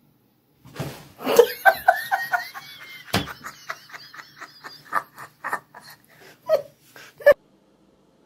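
A person laughing in short, repeated bursts, with a sharp knock about three seconds in.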